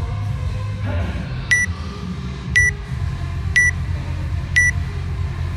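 Workout timer's countdown beeping: short, identical high beeps, one a second, starting about one and a half seconds in, over a steady low hum.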